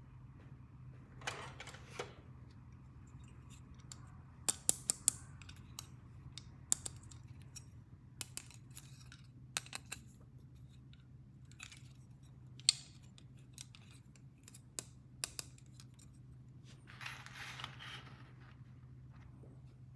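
Small plastic toy pieces and packaging being handled: scattered sharp clicks and taps, a flurry of them around four to five seconds in, with two short rustles near the start and near the end, over a steady low hum.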